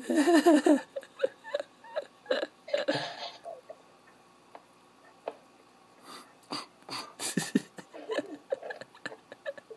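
A young child's short silly vocal noises, hiccup- and burp-like gulps and sounds, made while pulling faces, with a few sharp clicks in between.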